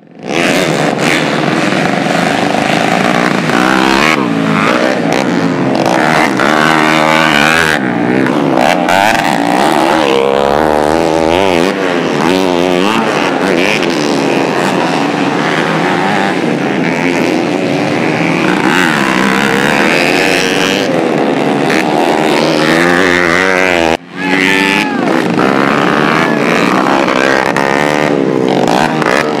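Several 110cc motocross bikes racing on a dirt track, their engines revving up and down as the riders accelerate out of corners and back off over the jumps. The sound is loud and continuous, with one brief break about 24 s in.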